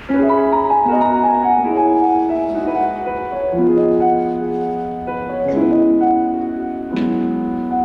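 Piano playing slow, held chords of a ballad's introduction, with a firmly struck new chord about seven seconds in.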